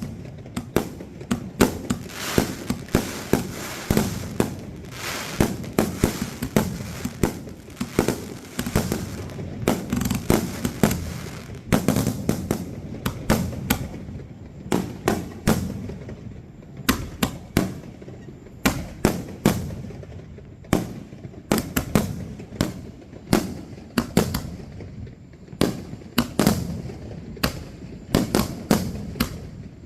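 Fireworks display going off in a rapid barrage of sharp bangs, several a second. It is densest and thick with crackle for the first dozen seconds, then comes in looser clusters of bangs.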